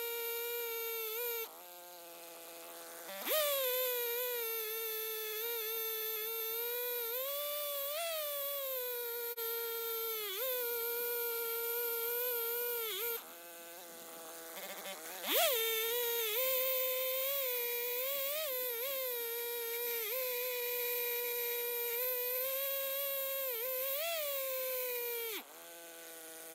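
Stihl chainsaw in an Alaskan mill running at full throttle through a log in a long rip cut, its whine wavering with the load. Three times, about a second and a half in, about halfway and near the end, the throttle drops to a low idle for a second or two; the first two times it revs back up with a rising whine.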